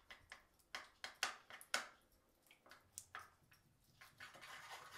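Spoon stirring thick, sticky nut butter and coconut oil in a small bowl: faint, scattered clicks and scrapes of the spoon against the bowl, the loudest a little under two seconds in.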